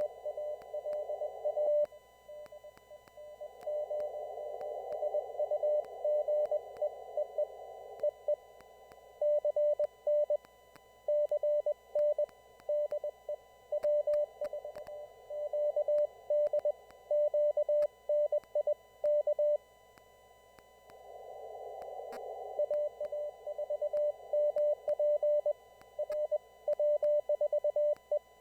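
Morse code (CW) signals heard on an amateur radio receiver: a steady mid-pitched tone keyed on and off in dots and dashes. Between transmissions the receiver's narrow CW filter lets through a band of hiss, which swells twice.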